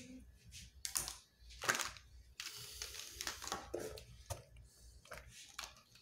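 Plastic Touchfive marker barrels clicking and clattering against one another as a hand sorts through a pile of them, with a longer stretch of rustling in the middle as the markers are swept over cloth.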